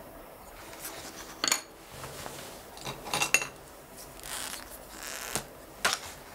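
Pen-and-paper desk sounds: a few sharp clicks from a pen being handled, a cluster of them about three seconds in, with soft scratching of writing on paper between them.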